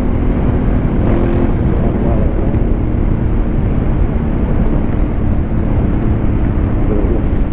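Motorcycle with an aftermarket exhaust running steadily while being ridden, the engine note mixed with dense wind and road noise.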